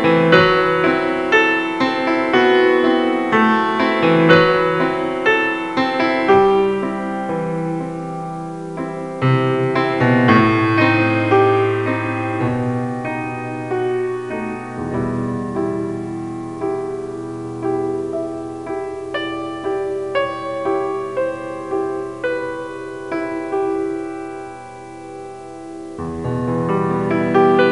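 Background piano music, single notes over sustained chords, softening briefly near the end before a new low chord comes in.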